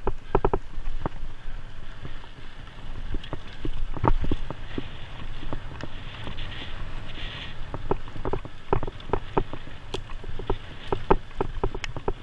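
Cyclocross bike rattling over a rough dirt-and-gravel track: a run of irregular knocks and clatters over a steady low rumble of wind on the handlebar-mounted microphone.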